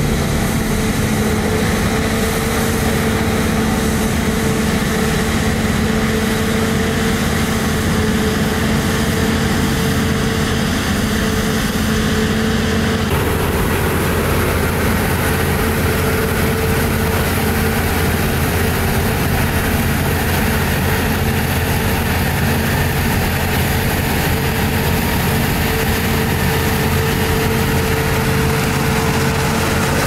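Combine harvester running steadily while threshing rapeseed: a constant engine and machinery drone with a steady hum. The sound changes abruptly about thirteen seconds in.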